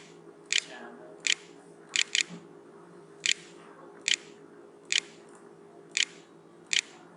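Computer mouse button clicking at an unhurried pace, about ten sharp single clicks with one quick pair, each click typing a letter on an on-screen keyboard. A faint steady hum lies underneath.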